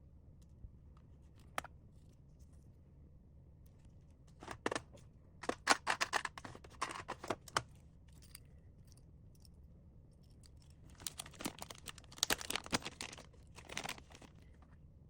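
Packaging being handled and torn open: a couple of light clicks, then two spells of rapid crinkling and tearing, the first starting about four seconds in and the second about eleven seconds in.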